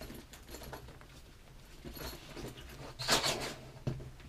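Soft-sided Bass Pro Shops Extreme worm bags being handled and moved on a table: fabric and handle rustling, with a louder scrape about three seconds in.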